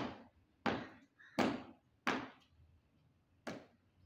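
Hammer striking a floor to break out old tiles and concrete: five sharp blows, four in a quick even run about two-thirds of a second apart, then a weaker one after a pause.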